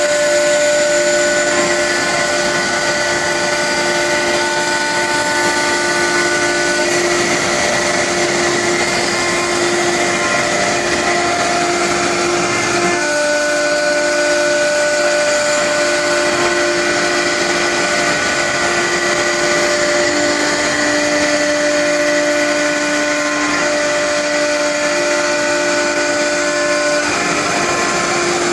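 CNC router running: a steady, loud machine noise with several high whining tones layered over it. The whining tones drop out about seven seconds in, come back about thirteen seconds in, and drop out again near the end.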